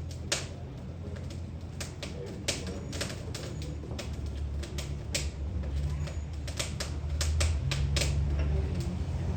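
Wood kindling crackling in a blacksmith's forge fire: irregular sharp pops and snaps, the sign that the wood has caught. A steady low hum runs underneath.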